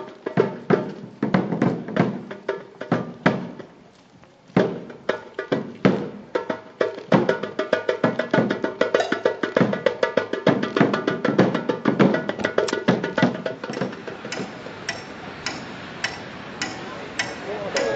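Percussion-led music: sharp drum strikes, sparse at first with a brief quiet dip, then a faster, steady beat from about seven seconds in.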